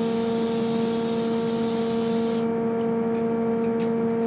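Aerosol cooking spray hissing onto a frying pan in one continuous spray that cuts off about two and a half seconds in. A steady electrical hum runs underneath.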